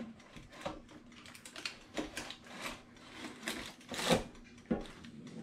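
Air fryer basket being pushed back into its drawer and handled: a run of irregular plastic clicks and knocks, the loudest about four seconds in.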